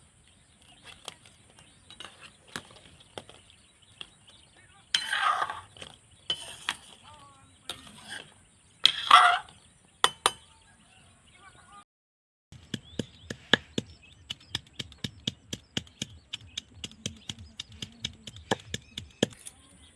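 Kitchen utensil sounds: scattered clinks and knocks with two louder, rougher bursts. After a sudden break about halfway, a run of quick, even taps follows, about three a second, like a knife chopping on a board.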